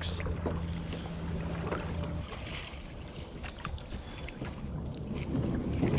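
Kayak paddle strokes dipping into calm water, with light splashes and drips. A low steady hum stops about two seconds in.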